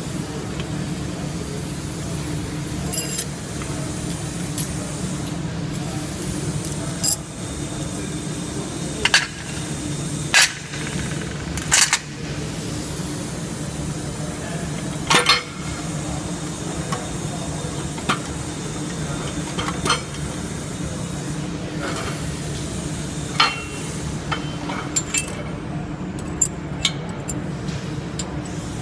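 Steel gears of a Chevy S-10 rear differential clinking and knocking as they are handled and lifted out of the axle housing: about a dozen irregular, sharp metal clinks over a steady low hum.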